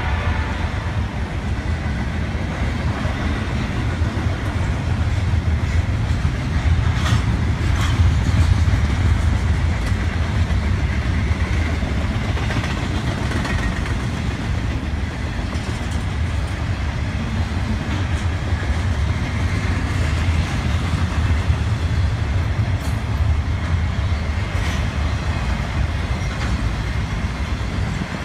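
Double-stack intermodal container train rolling past, a steady deep rumble of the well cars and their wheels on the rails, with a few sharp clicks now and then.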